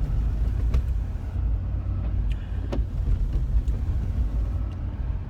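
Steady low rumble of road and engine noise inside a moving vehicle's cab while driving on a snowy road, with a few faint clicks.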